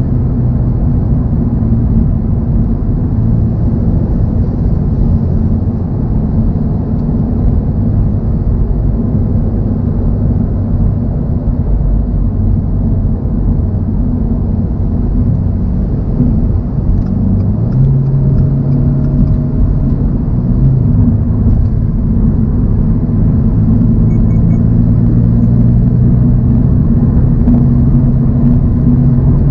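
Toyota GR86's 2.4-litre flat-four engine and road noise while the car cruises, a steady low drone. About two-thirds of the way in, the engine note steps up a little and gets slightly louder toward the end.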